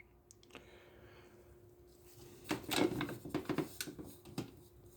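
Light clicks and knocks of the lathe's metal parts being handled and adjusted, a cluster lasting about two seconds that starts about halfway in.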